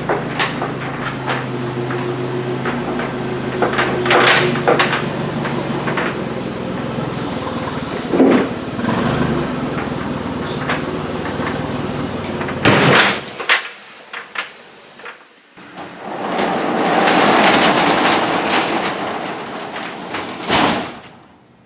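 Rollback truck's engine running steadily, with knocks and clanks over it, until it drops out about 13 seconds in. A couple of seconds later a loud rushing noise swells and fades.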